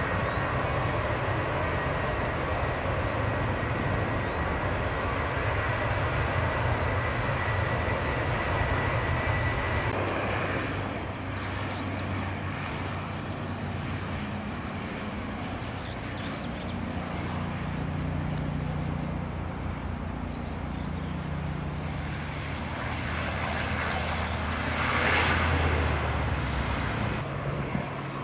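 Airport engine noise with a steady high whine for about the first ten seconds. Then a Bombardier Dash 8 Q400 turboprop on landing approach gives a steady low propeller drone, growing loudest about 25 seconds in as it passes.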